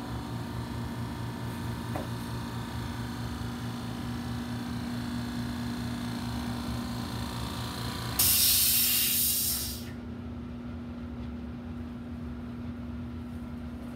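Electrostatic paint-spraying equipment running with a steady, pulsing hum. About eight seconds in a loud hiss of spray or released air lasts about a second and a half. The pulsing drone stops as the hiss begins, leaving a lower steady hum.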